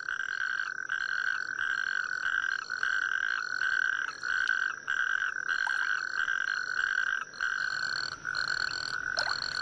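Male natterjack toad calling: a loud, steady, high-pitched trill blown through its inflated vocal sac, the male's mating call to the females. The trill goes on and on, broken into short phrases about twice a second.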